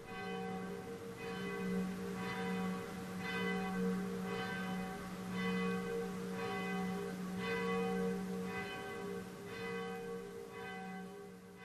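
A church bell tolling, struck about once a second, each stroke ringing on into the next, and starting to fade near the end.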